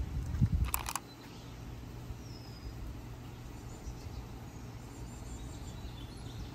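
Outdoor background: a steady low rumble with faint, sparse bird chirps. A short burst of noise, with low knocks just before it, comes near the start.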